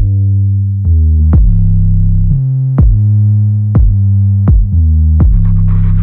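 Electronic background music: a heavy synth bass line with a steady drum-machine beat.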